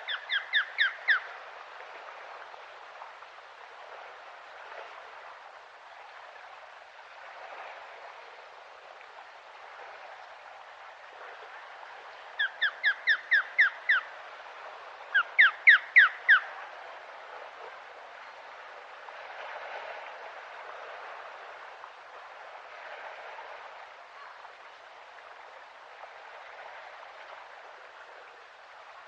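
Osprey calling: three bursts of five or six short, sharp whistled notes in quick succession, one at the start and two close together about halfway through, over a steady faint outdoor hiss.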